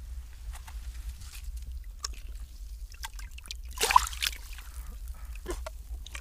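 Water dripping and sloshing in an ice hole as a seal pup moves in it, with a short splash about four seconds in as the pup rolls and its flipper breaks the surface.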